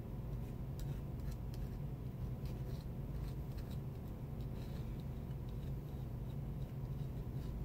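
Faint scattered ticks and light scratches of small hand work on a phone's thin frame, over a steady low hum.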